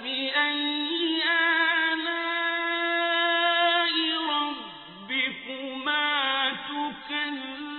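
Quranic recitation by a male reciter in melodic tajweed style. After a brief pause he holds one long, steady note, then the pitch dips and turns several times in the second half.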